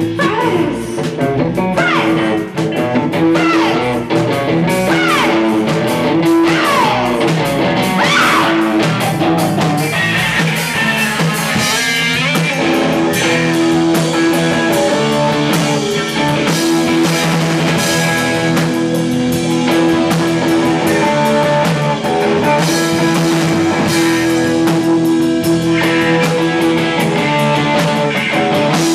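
Live rock band playing loud: distorted electric guitars, bass and drum kit through amplifiers, with sweeping sliding notes over the first several seconds and then steady held chords.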